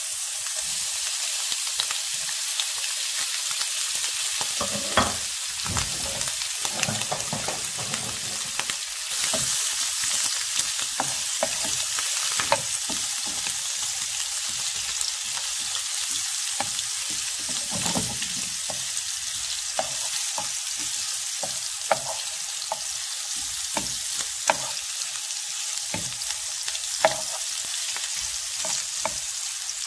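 Sliced duck breast sizzling steadily as it fries in oil in a pan, with a wooden spoon knocking and scraping against the pan now and then as the slices are stirred.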